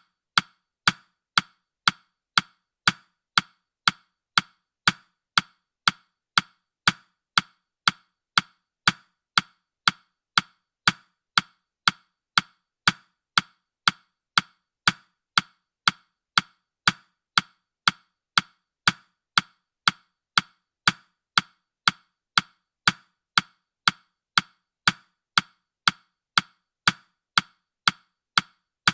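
Countdown timer's ticking sound effect: a steady, clock-like tick, about two sharp wooden-sounding ticks a second.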